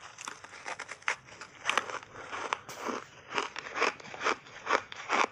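Crunchy frozen buckwheat ice bar being chewed close to the microphone: a run of sharp crunches, irregular at first and then settling into about two a second.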